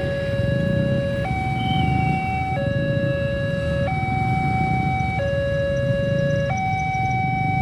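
Railway level-crossing warning siren sounding a steady two-tone alternation, a lower and a higher tone each held about a second and a quarter. This is the signal that the crossing barrier is closed for an approaching train. A low rumble runs underneath.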